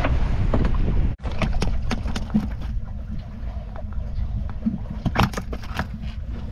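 Wind buffeting the microphone over water aboard a small fishing boat, a steady low rumble with scattered knocks and clicks. The sound cuts out abruptly for an instant about a second in.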